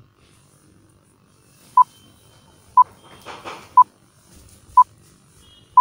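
Countdown timer sound effect: five short, identical beeps, one a second, starting about two seconds in. A soft rushing noise falls between the second and third beeps.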